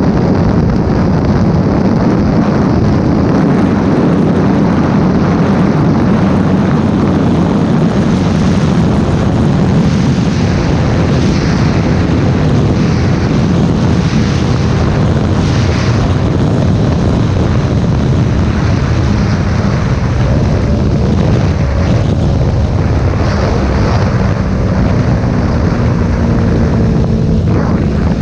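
Yamaha R3 sport bike with a full exhaust slowing down from high speed, its parallel-twin engine running under heavy wind rush on the camera microphone. The engine's steady tone comes through more clearly in the last third as the speed drops.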